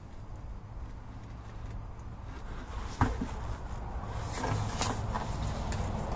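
Used car tyres being handled and tipped over on a brick pavement: a dull thump about three seconds in, then a few knocks and scuffs of rubber, over a low steady rumble.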